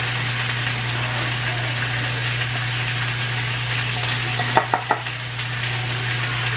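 Steady sizzling hiss of chicken searing in a skillet on the stove, over a low steady hum. A few short, sharp squelchy clicks come about four and a half seconds in, as Dijon mustard is squeezed from its bottle into a plastic measuring spoon.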